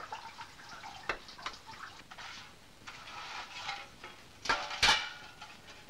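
Light scrapes and clicks of a hand brush sweeping debris into a metal dustpan over a metal bucket, with two louder knocks about four and a half seconds in, the second one ringing briefly.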